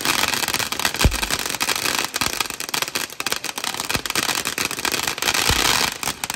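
Several ground fountain fireworks spraying sparks at once: a dense, steady crackling hiss. Sharper pops come about a second in (the loudest), at about four seconds and near the end.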